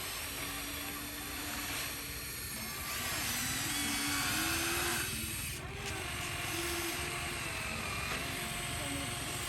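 Small electric motors of a remote-control construction model whining, their pitch shifting up and down as the machine works.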